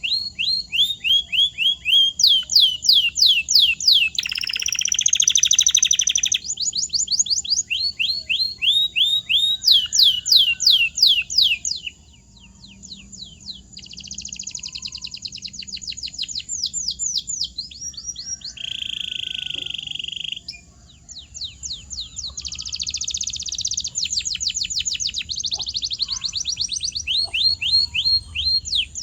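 Domestic canary singing a long song made of runs of rapidly repeated notes: rows of quick high falling whistles alternating with buzzy trills, the phrase changing every second or two.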